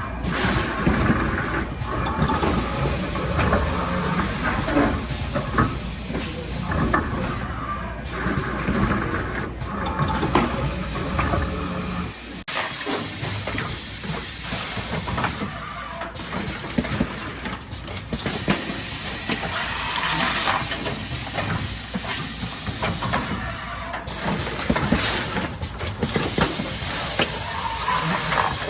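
Automatic carton case form-fill-seal packaging machine running, a steady mechanical noise with a dense clatter of many small knocks. The sound changes abruptly about twelve seconds in.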